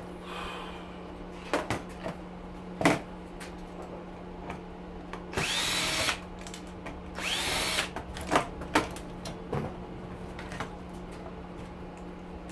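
Cordless power drill/driver running in two short bursts, each spinning up to speed, as screws are backed out of the air cleaner's casing, with scattered clicks and knocks of parts being handled.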